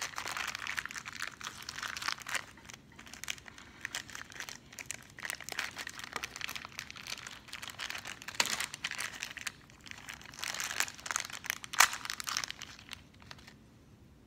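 Thin clear plastic wrapper crinkling and rustling in the hands as a small toy figure is unwrapped. It comes in irregular bursts, with one sharper crackle shortly before the sound dies away near the end.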